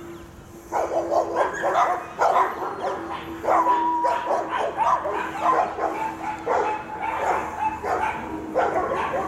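Dogs barking and yipping over and over, one bark close on the next, starting about a second in.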